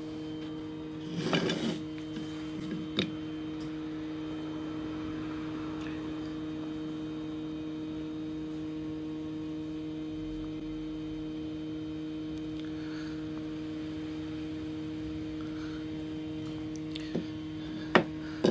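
Steady electrical hum made of several even tones, with a short rustle a little over a second in, a click about three seconds in, and two sharp clicks near the end as a metal protractor is handled against a wooden jig.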